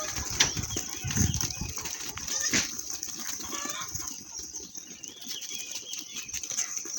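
Farmyard sounds of livestock moving about: short high chirps in the first second or so and a few knocks, over a steady high hiss.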